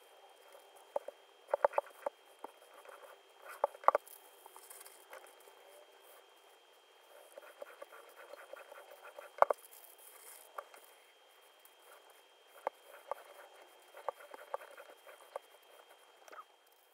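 Handling sounds of ironing fabric under a paper pressing sheet: scattered taps and clicks of the iron and hands on the work, with scratchy rustling of the paper sheet being slid, lifted and laid down, over a faint steady high tone.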